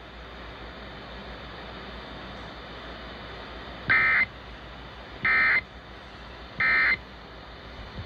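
Emergency Alert System end-of-message code heard off the radio through a small portable speaker: steady radio hiss, then three short, raspy digital data bursts about a second and a half apart, marking the end of the alert.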